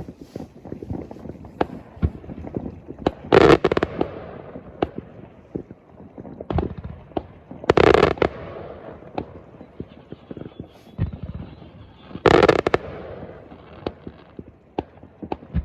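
Fireworks going off: a steady scatter of sharp bangs and pops, with three much louder bursts about four and a half seconds apart, each trailing off in an echo.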